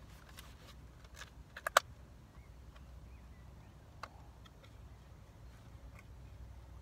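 Hands handling fishing tackle: a run of small clicks, a sharp loud snap a little under two seconds in, and a single knock about four seconds in.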